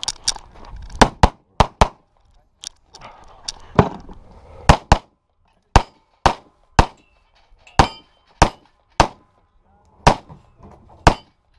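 Handgun shots: about fifteen sharp cracks, some fired in quick pairs and others singly half a second to a second apart, with the rustle of the shooter moving between strings.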